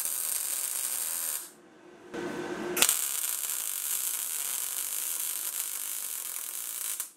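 MIG welder arc crackling as a steel pipe is welded onto a steel sheet. A first run of about a second and a half stops, and after a short break a second, longer run of about four steady seconds cuts off suddenly near the end.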